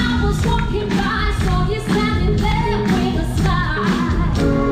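Loud pop song with singing over a steady beat of about two strokes a second, played for a dance number on a studio stage.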